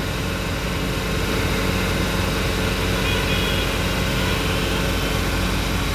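Maruti Suzuki WagonR petrol engine running steadily, held at high revs.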